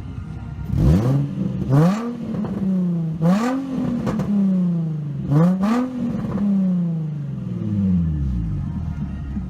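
Infiniti G35's 3.5-litre V6 revved four times through a gutted stock muffler: quick rises in pitch that fall back toward idle, then settling to idle near the end. There is a little popping on the revs; the gutted muffler still has to be welded back together.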